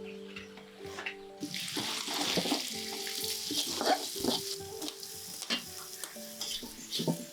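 Food sizzling and crackling as it fries in hot oil in a pan, starting about a second and a half in, with scattered clicks of stirring. Soft instrumental background music plays underneath.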